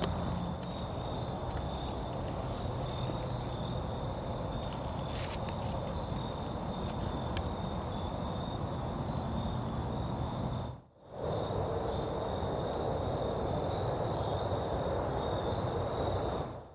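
Night insect chorus, a steady high even trilling, over a rushing background hiss. It cuts out briefly about eleven seconds in.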